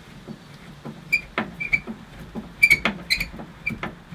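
Crosshead screwdriver undoing a bolt on a metal tailgate: irregular small metallic clicks and ticks, some with a brief ring, in bunches about a second in and again about three seconds in.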